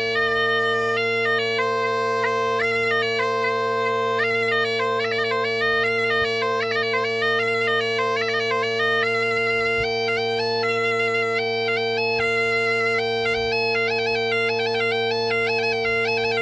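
Portuguese bagpipe (gaita de foles) playing a tune: a steady low drone under a chanter melody that steps between held notes.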